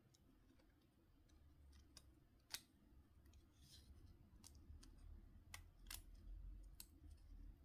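Faint, irregular small clicks and ticks of a mobile phone's plastic and metal parts being handled, about a dozen in all, the loudest about two and a half seconds in, over a low hum.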